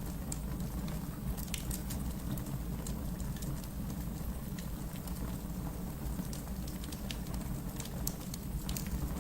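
Wood fire burning in a fireplace: a steady low rush of flame with irregular sharp crackles and pops from the burning logs.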